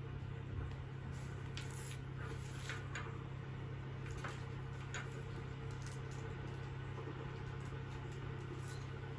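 A steady low hum, with a few faint light clicks of small objects being handled.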